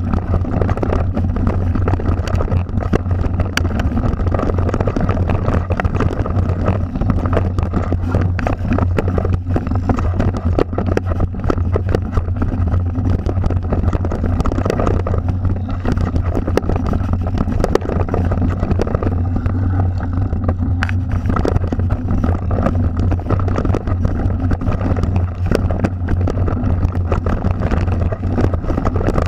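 Mountain bike ridden down a dirt singletrack, heard from a camera riding on the bike: a steady low rumble of tyres and wind on the microphone, with continual rattles and clicks from the bike over rough ground.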